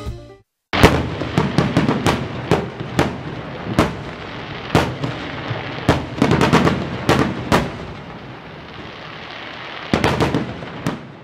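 Fireworks going off: a rapid, irregular string of sharp bangs and pops over a hissing crackle. They start about a second in and thin out, then a last cluster of bangs comes near the end.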